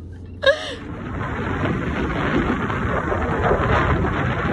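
Strong wind buffeting the microphone on an open beach, a steady rushing roar with the wash of breaking surf behind it. It is preceded, about half a second in, by a short burst of voice in the car.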